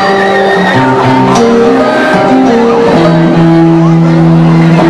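Live band music, with a keyboard playing held notes that step from one pitch to the next, settling on one long chord about three seconds in.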